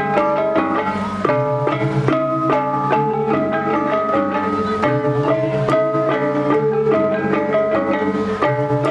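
Music: a melody of clear plucked or struck notes, changing about twice a second over a steady beat.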